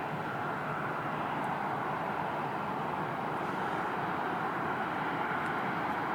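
Steady, even rushing noise of jet airliner engines running at low power.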